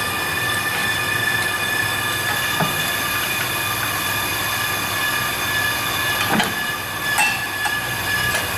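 Brake lathe resurfacing a brake rotor, running with a steady metallic whine made of several held tones. A few short metal clinks of a brake tool being fitted into a caliper come about two and a half, six and a half and seven seconds in.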